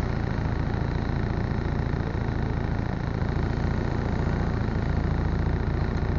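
Steady low engine rumble of a vehicle idling, with a constant noise wash over it.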